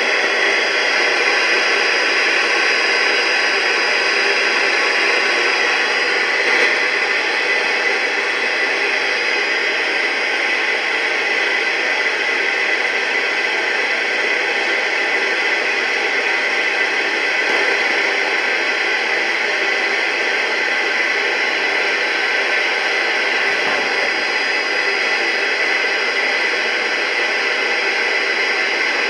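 Steady radio static: a weather radio receiver hissing, with no voice or alert tone coming through.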